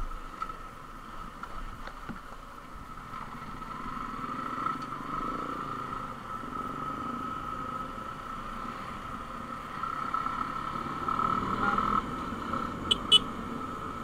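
Motorcycle running steadily on the move, heard from the rider's position as a constant whine over a low rumble. There is a short sharp click near the end.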